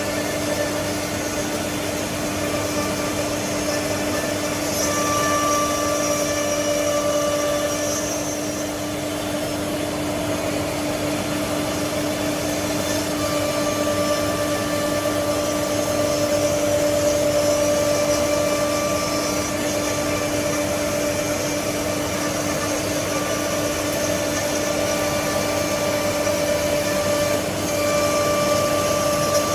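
Four-head CNC nesting router running: a steady high-pitched whine from the spindles over a continuous hissing rush. The sound swells and eases a little and dips briefly near the end.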